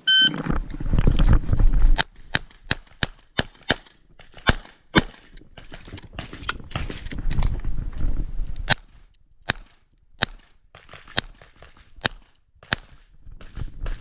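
A shot-timer start beep, then a Smith & Wesson 929 9mm revolver firing 38 Short Colt in quick strings of sharp shots a few tenths of a second apart, with pauses between groups.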